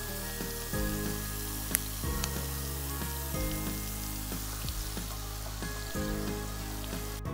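Chicken skins deep-frying in hot oil, sizzling steadily. The sizzle cuts off suddenly near the end.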